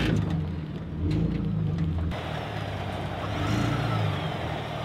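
Truck engine running at low revs, its pitch rising and falling a little, as it crawls slowly through a tight rocky section of trail. A steady hiss joins in about two seconds in.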